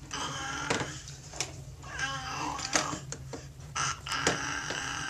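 A baby vocalizing in three short, wavering cries, with sharp clicks and knocks of plastic toy pieces being handled between them.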